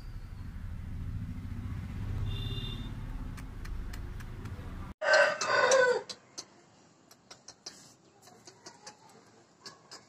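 Aseel rooster crowing once, loudly, about halfway through: a short crow of about a second that falls in pitch at its end. Before it runs a low steady rumble like an engine, and after it come scattered light clicks.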